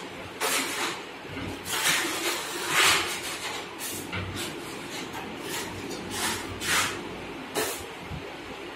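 A broad putty blade scraping wall putty across a wall in quick sweeping strokes: a string of short scraping swishes, roughly one or two a second at an uneven pace.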